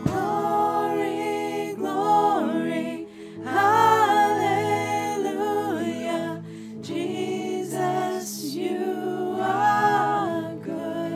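Worship song sung over steady held accompaniment chords, the voice coming in phrases of a few seconds with short breaths between them.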